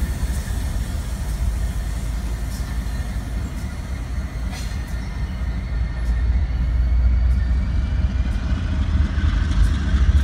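BNSF freight train moving away along the track: a steady low rumble that gets a little louder in the second half.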